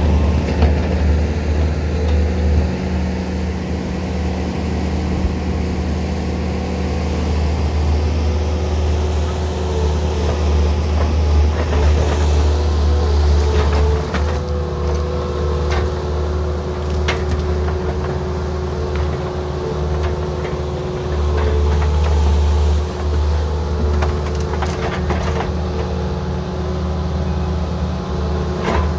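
An engine running steadily with a low drone, with a scattering of knocks and clicks over it.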